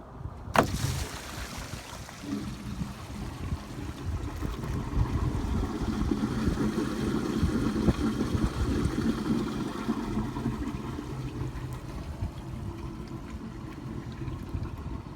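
A sharp clack about half a second in as the RV's black water tank valve is pulled open, then the tank's wastewater rushing and gurgling steadily down the sewer dump hose, building over the first few seconds.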